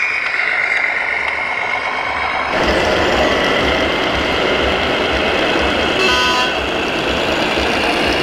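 1:14-scale RC model trucks driving: a steady whine at first, then, after an abrupt change about two and a half seconds in, a louder, denser sound with an even low pulse, like a truck engine. A short electronic beep comes about six seconds in.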